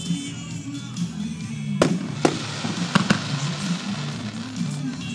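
Aerial fireworks shells bursting with four sharp bangs, the first about two seconds in, the next half a second later, then two in quick succession about three seconds in, over steady background music.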